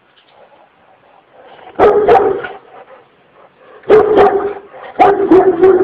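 A Kurdish Kangal shepherd dog barking aggressively: three loud volleys of barks, two, then two, then three, about two seconds apart, starting about two seconds in.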